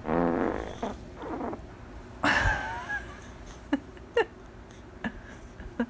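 A newborn baby's short creaky grunts and a squeak, followed by a few soft clicks.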